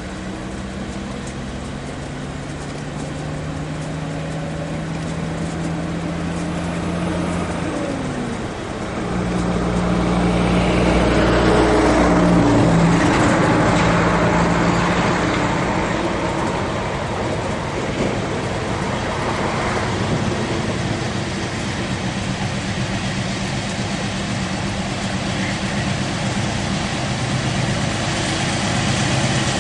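CSX GE diesel locomotives working a double-stack container train, their engines holding a steady low note that shifts about eight seconds in. Wheel and rail noise builds as the units come closest, loudest about twelve seconds in, then eases off.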